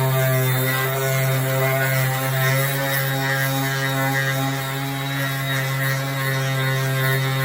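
Cordless sander clamped in a vise running at a steady speed, a steady hum as a third brake light cover is sanded on it.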